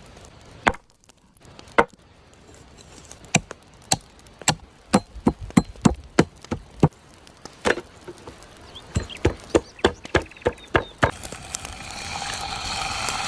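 Knife chopping on a cutting board: many sharp, separate strokes, irregular and at times in quick runs. Near the end a steady hissing noise rises.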